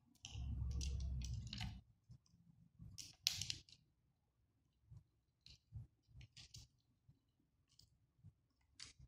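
Plastic beads clicking and rattling against each other as a beaded keyholder is handled and threaded on nylon fishing line: a rustling scrape for the first couple of seconds, one sharp click about three seconds in, then scattered light clicks.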